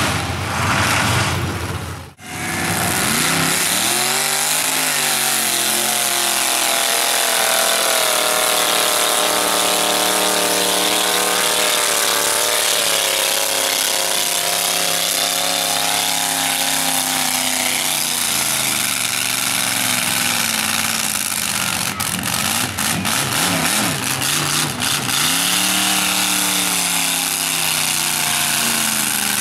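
Engine of a lifted mud truck on tractor tires revving hard as it churns through deep mud, the pitch climbing and falling in long sweeps. There is a short break about two seconds in, and a few sharp clicks late on.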